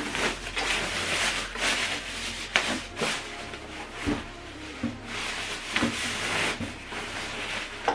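White protective wrapping rubbing and rustling as it is pulled off a subwoofer, in several surges of scraping noise with a few light knocks.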